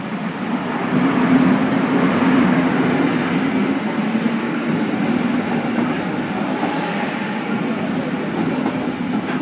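An electric-locomotive-hauled passenger train rolls into a station platform close by. The locomotive's run-by is loudest about a second or two in, with a low hum under the rolling noise, then the coaches roll past steadily.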